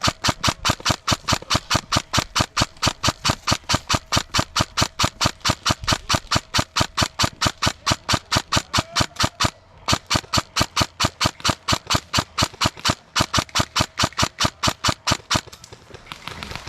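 Airsoft gun firing a long, even string of shots at about five a second. It breaks off briefly twice and stops about a second before the end.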